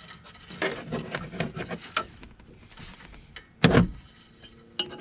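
Metal oil dipstick being wiped in a cloth rag and handled, with short rubbing and scraping sounds and light clicks. One loud thump comes about three and a half seconds in.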